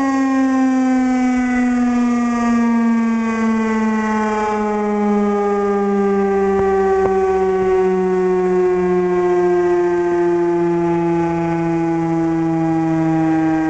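Outdoor warning siren winding down, its pitch falling slowly and steadily.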